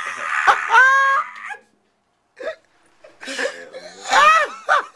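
Men laughing with breathy gasps and a high squealing laugh in the first second and a half. After a pause of under a second, more laughter comes from about three seconds in.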